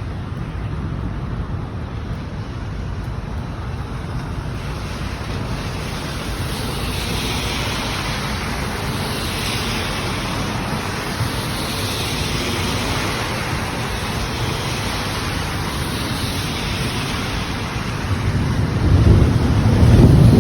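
Thunderstorm wind gusting and buffeting the microphone over a steady rush of rain, swelling and easing every few seconds. Near the end a loud, low roll of thunder begins.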